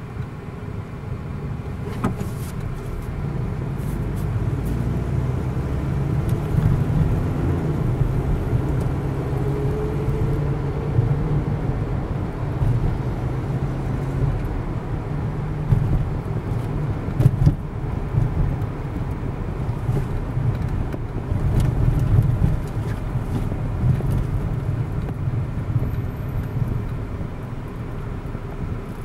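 Car engine and road noise heard from inside the cabin as the car drives off from a green light and cruises: a steady low rumble, with the engine pitch rising as it accelerates a few seconds in. A few faint clicks or knocks.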